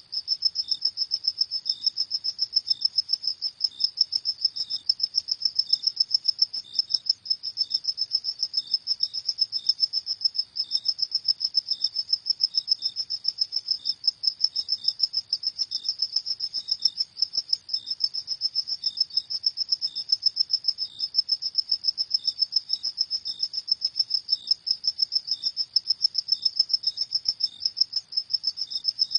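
Crickets chirping steadily: a high, rapidly pulsing trill, with a fainter, slightly lower chirp repeating about every half second.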